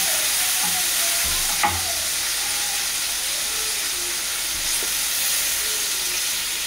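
Sliced tomato, onion and pepper sizzling steadily in hot frying oil in a pan, with one sharp click about a second and a half in.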